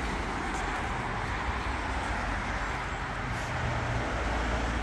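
Steady hiss and low rumble of traffic on a nearby highway, even in level throughout.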